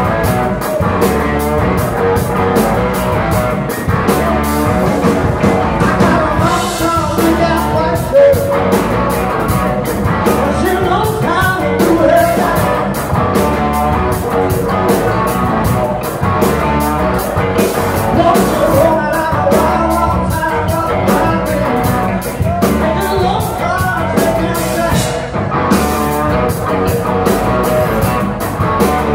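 Live rock band playing at full volume: two electric guitars, bass guitar and a drum kit keeping a steady beat, with a singer's voice over them.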